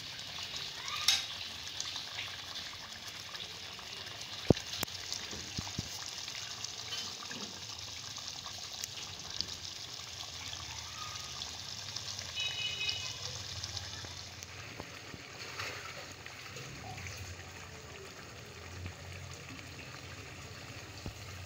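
Chicken, yogurt and spice masala sizzling as it fries in oil in a pot, with a spoon stirring and a few sharp clicks against the pot; this is the bhuna stage, frying until the oil separates. The sizzle thins out after about fourteen seconds.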